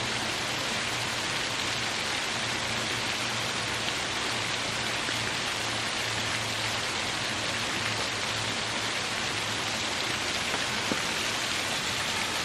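Small waterfall splashing over rocks: a steady, even rush of falling water.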